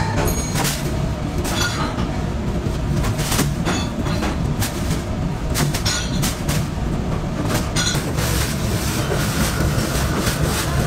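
A steady low rumble, like running machinery, with irregular clicks and knocks all through it.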